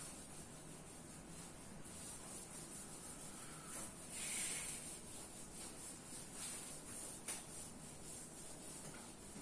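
Whiteboard duster rubbing across a whiteboard, wiping off marker writing: faint swishing strokes, loudest about four seconds in, with one light tap late on.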